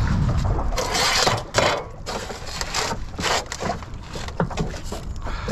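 Irregular scrapes, rustles and knocks of a sheepshead being handled and pressed onto a plastic measuring ruler on a fibreglass skiff deck.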